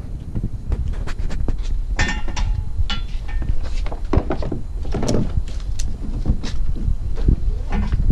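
Hollow plastic knocks and thunks of a yellow plastic kayak being loaded into a pickup truck bed, with scattered sharp clicks, over a steady low rumble.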